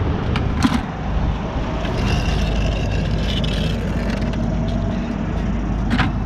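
Road traffic on the bridge, a steady low rumble with a passing vehicle's faint whine in the middle. A few sharp metal clinks from rusty scrap bars being handled, shortly after the start and again near the end as the bars go into a bucket.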